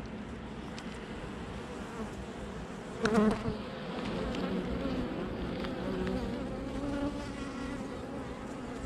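Honeybees from an open hive buzzing in a steady hum. A brief louder sound comes about three seconds in.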